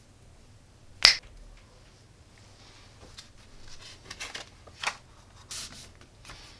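Hands handling robot-kit parts and paper instruction sheets on a tabletop: a single sharp click about a second in, then faint rustling and light taps.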